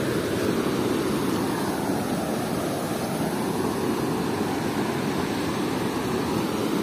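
Steady rush of sea surf: small waves breaking and washing up over flat wet sand.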